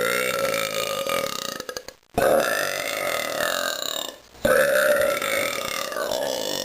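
A person burping three times in a row. Each burp is long, about two seconds, and its pitch rises and then falls.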